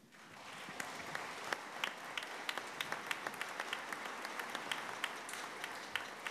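Congregation applauding, swelling over the first half-second and then holding steady, with many single claps standing out.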